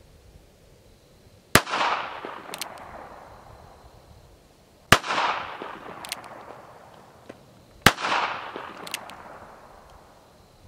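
Three gunshots from a Standard Manufacturing Switch-Gun .22 Magnum mini revolver, about three seconds apart, each trailing off in a long echo. A short click comes about a second after each shot as the single-action hammer is cocked for the next.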